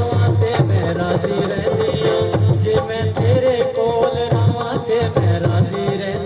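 Instrumental stretch of a South Asian film-style song: a steady hand-drum beat under a held, sliding melody line.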